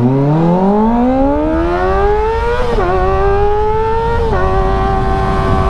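Kawasaki ZX-25R's 250 cc inline-four engine through an IXIL slip-on exhaust with its dB killer fitted, revving hard under full acceleration: the pitch climbs steeply, dips sharply twice as it shifts up, and then holds a high, steady note. Low rushing wind noise runs underneath.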